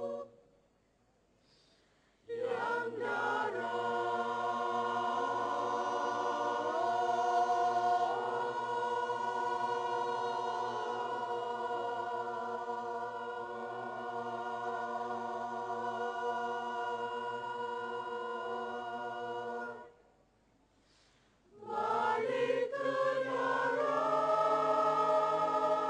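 Mixed choir of men's and women's voices singing long held chords under a conductor. The singing stops twice for pauses of about two seconds, just after the start and about three-quarters of the way through, then comes back in on a new chord.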